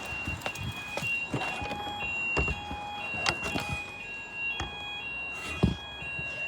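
Several fire alarms beeping at once: high-pitched electronic tones at slightly different pitches, each beeping on and off out of step with the others. Knocks and thumps come through them, with one sharp thump near the end.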